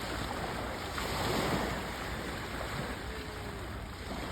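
Waves washing on the shore, one swelling in about a second in, with wind rumbling on the microphone.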